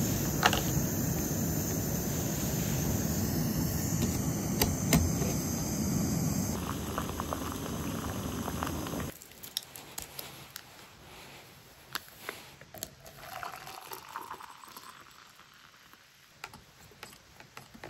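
Backpacking gas canister stove burning with a steady hiss and a few clicks, stopping suddenly about nine seconds in. Then hot water is poured into a mug, its pitch rising as the mug fills, among small clinks.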